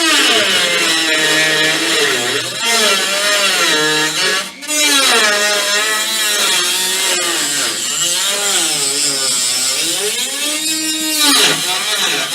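Dremel rotary tool cutting the truck's sheet steel, its high whine wavering up and down in pitch as the cut loads and frees it, with two brief dips in the first few seconds.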